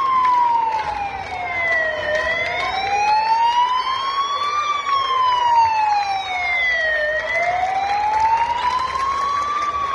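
Civil Protection ambulance siren wailing slowly, its pitch gliding up and down in a cycle of about five seconds, twice through, as the van drives in.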